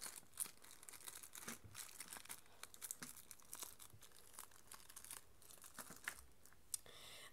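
A small plastic zip bag of polymer-clay canes crinkling faintly as it is handled, with scattered light crackles and a few sharper ticks.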